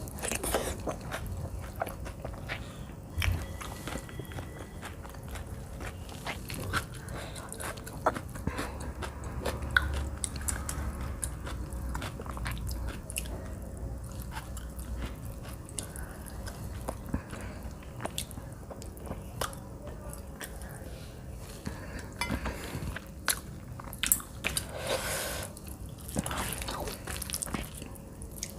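Close-miked chewing and wet lip smacking as a person eats handfuls of rice mixed with aloo bori bharta, with many short mouth clicks throughout.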